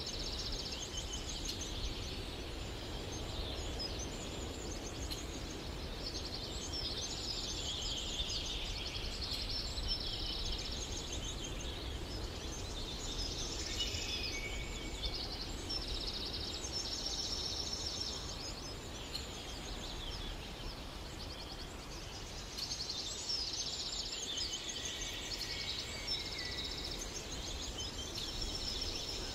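A chorus of small birds chirping and singing continuously, with quick repeated high chirps over a steady low rumble.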